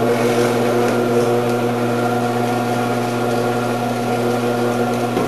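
Electric motor of a commercial vegetable cutter fitted with a shredding disc, running steadily with an even hum and a few fixed tones.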